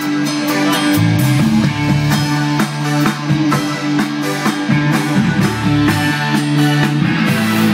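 Rock band playing: electric guitar over a drum kit keeping a steady beat.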